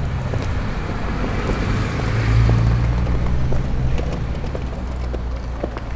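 Motor vehicle engine rumble with road noise, swelling to its loudest about two seconds in and then easing off, like a car driving past. Scattered small clicks and taps sound over it.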